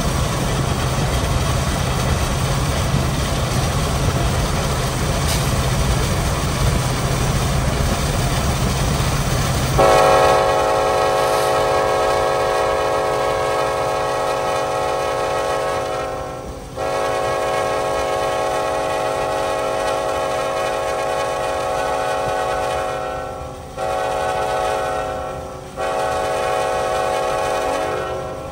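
Norfolk Southern SD70ACe diesel locomotive running at speed, its rumble mixed with road and wind noise from a car driving alongside. About ten seconds in its air horn sounds the grade-crossing signal: two long blasts, a short one, and a final long one.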